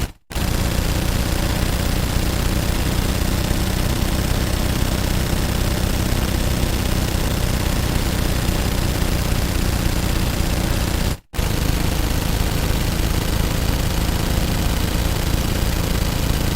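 Gatling gun firing long sustained bursts, the shots coming so fast they run together into a continuous rattle. It breaks off briefly just after the start and again about eleven seconds in, then resumes.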